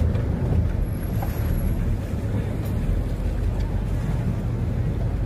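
Speedboat engine running steadily under way: an even, low drone with a haze of noise above it.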